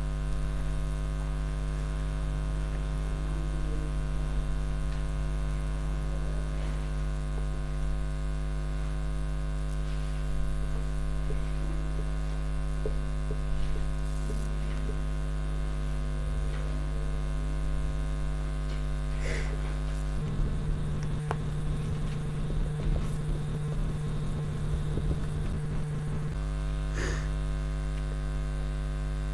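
Steady electrical mains hum with a stack of evenly spaced overtones, which turns rougher and noisier for several seconds past the middle.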